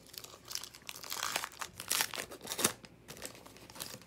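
Crinkling and tearing of a trading-card pack wrapper being opened, in crackly bursts over about two seconds with the sharpest rips near the middle, then a few fainter crinkles.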